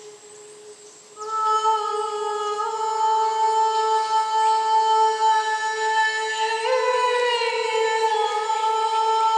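A woman's voice singing one long wordless note, starting about a second in. Its pitch steps up slightly about two-thirds of the way through, then settles back.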